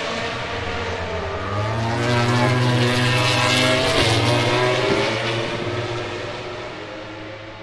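MotoGP racing motorcycle engine at high revs passing by. It grows louder to a peak about four seconds in, then drops in pitch and fades away.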